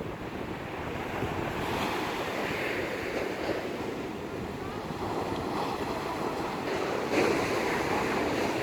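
Rough sea surf breaking and washing in strong wind, swelling and easing several times, with wind rumbling on the microphone.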